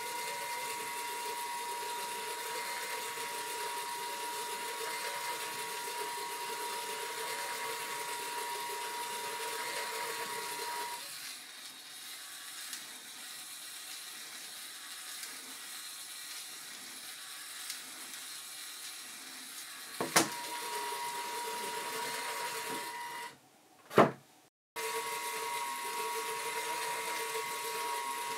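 Lego electric motor driving a Technic gear train and a spinning Reuleaux-triangle rotor, running with a steady whirr and a thin whine; it quietens for a stretch in the middle. It stops, a single loud click follows, and it starts running again shortly after.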